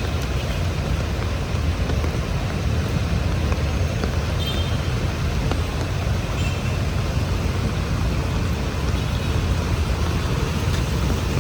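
Steady city street traffic in heavy rain: a continuous low rumble of passing vehicles under an even hiss.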